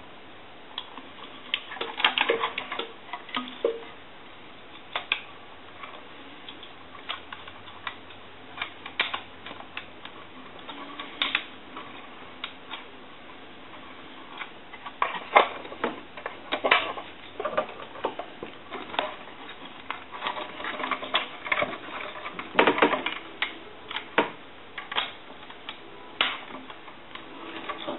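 Irregular small clicks, taps and knocks of plastic and metal parts being handled and fitted back together as a Conairphone Metropolis telephone is reassembled. The clicks come in scattered clusters, busiest about two seconds in and through the second half.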